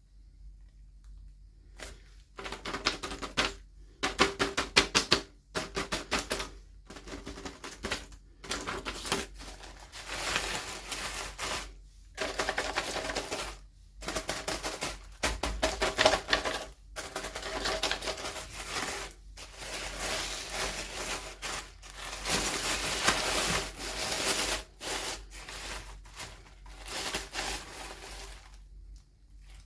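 Toy packaging being handled and opened by hand: rapid crackling and clicking in bursts of a second or two with short pauses, starting about two seconds in and stopping just before the end.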